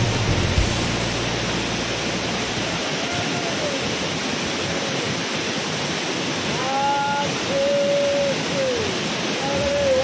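Waterfall pouring over sandstone ledges, a steady rushing hiss of falling water. In the second half a few held, gliding notes of a melody come in over it.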